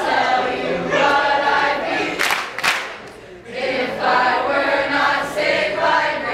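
A small group of men and women singing together without accompaniment, with a short break in the singing about three seconds in.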